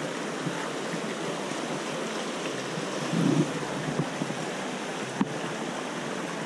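Shallow, rocky trout stream rushing over stones in a riffle, a steady wash of water. A brief louder thump comes about three seconds in, and a faint click later.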